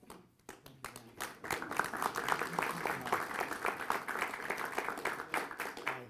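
Audience applauding. The clapping starts about half a second in, builds over the next second and stops near the end.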